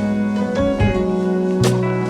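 Instrumental background music: sustained pitched notes shifting from chord to chord, with a sharp percussive hit at the start and another near the end.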